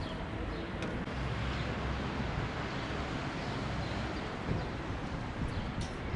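Steady outdoor street noise with traffic running, a constant rumble with a couple of faint ticks.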